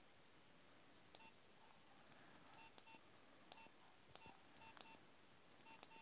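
Nokia 6020 mobile phone's keys pressed one after another while scrolling through its menus. There are faint key clicks and short electronic keypad beeps, about six presses at uneven intervals.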